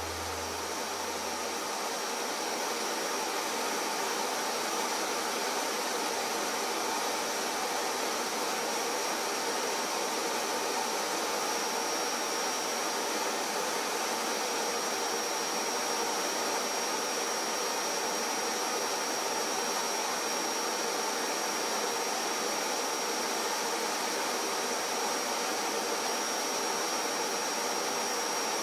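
Workshop dust extractor or vacuum running steadily, a constant rush of air with a thin high whine on top.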